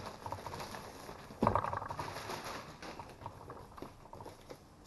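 Plastic courier mailer bag rustling and crinkling as a wrapped package is pulled out of it: a knock and a burst of crinkling about a second and a half in, then lighter scattered rustles.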